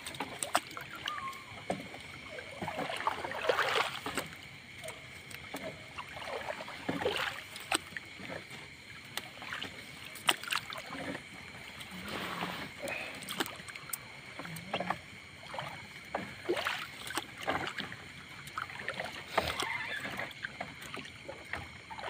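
Wet gill net being hauled hand over hand over the side of a small fishing boat: irregular splashes, drips and sharp knocks of the net and hands against the hull, over a steady wash of water.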